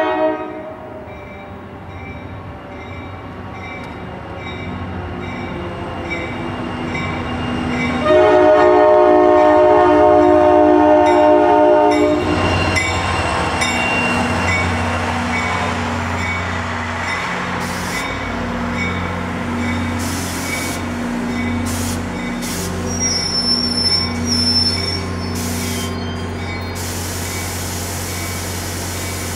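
Railroad crossing bell pinging steadily as a diesel commuter train approaches; the locomotive's horn sounds one loud multi-note blast of about four seconds about a third of the way in. The train then passes with a steady engine rumble and rail noise.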